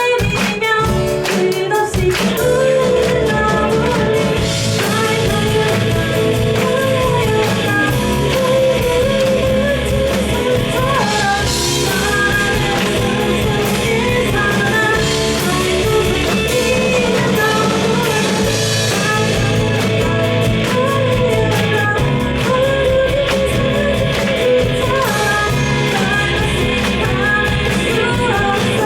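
A rock band playing live with a female lead vocalist singing over drum kit, electric guitars, bass and keyboard.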